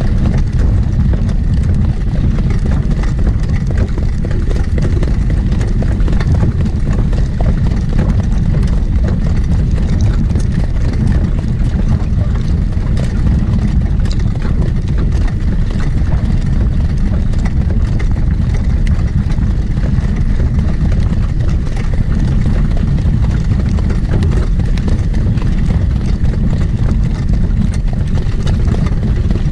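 Heavy, steady wind rumble on the microphone, with a harness racehorse's hoofbeats underneath.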